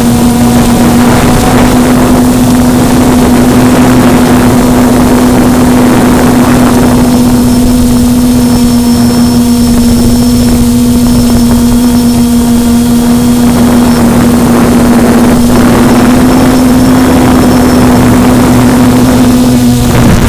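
QAV400 quadcopter's electric motors and propellers in flight, heard loud and close from the camera on board: a steady hum with one strong unchanging tone. The pitch shifts slightly right at the end.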